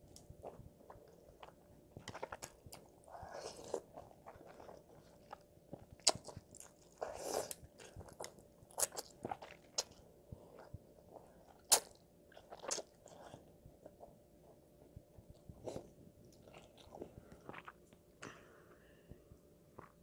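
A child eating black bean noodles (jjajangmyeon), close-miked: slurping noodles in a few short bursts and chewing, with scattered sharp clicks, the loudest about twelve seconds in.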